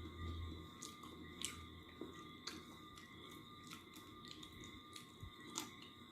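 A person chewing and eating close to the microphone, with scattered short, sharp clicks and smacks.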